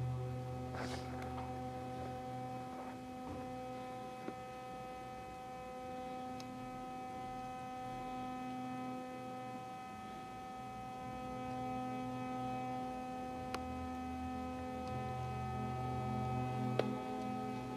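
Minimal electronic drone music: steady hum-like tones held at several pitches at once. A low tone fades a few seconds in and comes back near the end, and a few faint clicks sound over it.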